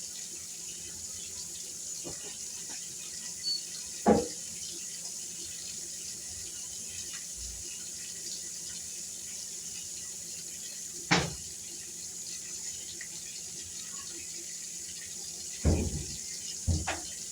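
Steady hiss of kitchen background noise, with a few sharp knocks of things handled and set down on the counter while chicken is seasoned.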